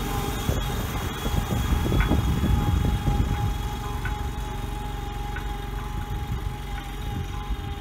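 Mini backhoe's 25 hp Kohler twin-cylinder gas engine running steadily under load as the machine drives along, with a steady whine over the engine and some rattling a couple of seconds in.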